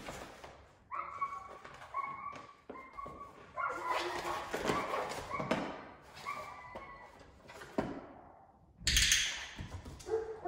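German Shorthaired Pointer puppy whining and yipping in a few short, high calls, with soft thuds of paws on the mat and floor. A brief noisy rustle comes near the end.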